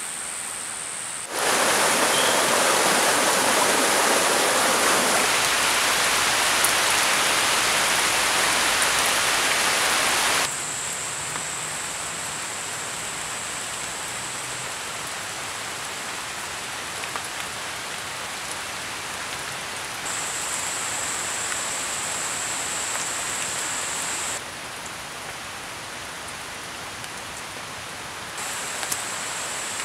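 Forest ambience of steady rain, its hiss jumping much louder a little over a second in and dropping back about ten seconds in. A steady high-pitched drone, like insects, cuts in and out several times over it.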